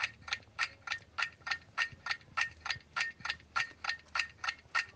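Clock-ticking countdown sound effect: sharp, evenly spaced ticks, about three a second, marking the time left to answer.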